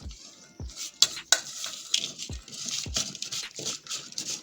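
Spoon stirring boiled omena in a cooking pot, the spoon knocking against the pot irregularly about two to three times a second over a light hiss.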